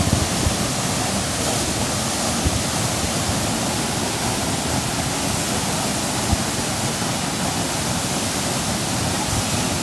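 Waterfall rushing steadily: an even, unbroken sound of falling water.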